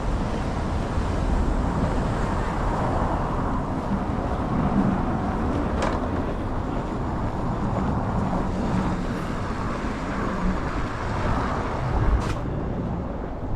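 City street traffic going by in a snowstorm, with wind rumbling on the microphone. Two short sharp clicks, about six and twelve seconds in.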